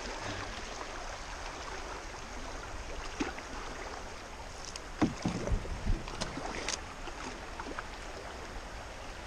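Fast river water rushing along a canoe as it is paddled, with a few sharp knocks about five to six seconds in.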